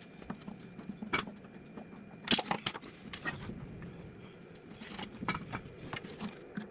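Scattered light clicks and knocks, a small cluster of them about two and a half seconds in and another about five seconds in, over a faint steady hum.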